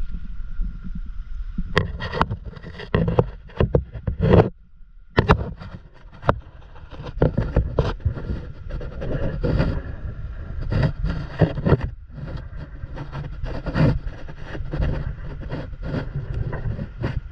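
Kayak paddle handling: irregular water splashes and knocks of the paddle against the plastic kayak, over a steady low rumble. The sound breaks off for about half a second around four and a half seconds in.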